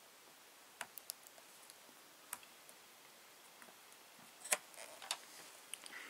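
Scattered small, sharp clicks and taps as an mSATA-to-IDE adapter circuit board is handled and pressed into place, the loudest one late on.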